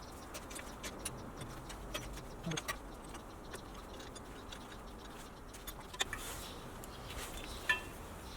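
Scattered light metallic clicks and taps as parking brake shoes and return springs are worked into place, with a short ringing clink near the end.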